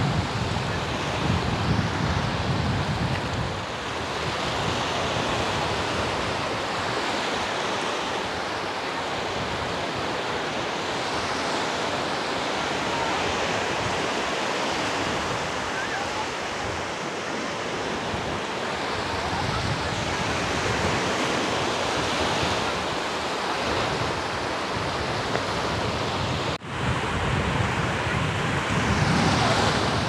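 Black Sea surf washing onto the beach in a steady hiss of breaking waves, with wind buffeting the microphone now and then.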